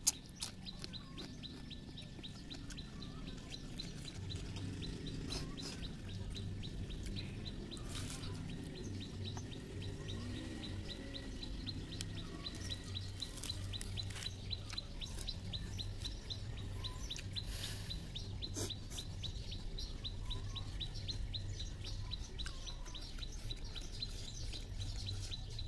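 A bird repeats a short high chirp over and over, about four to five times a second, very evenly. Scattered clicks and smacks of eating by hand come through, and a low hum starts about four seconds in.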